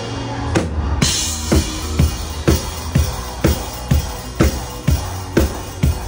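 Live band music driven by a drum kit playing a steady beat of about two strokes a second, with a cymbal crash about a second in.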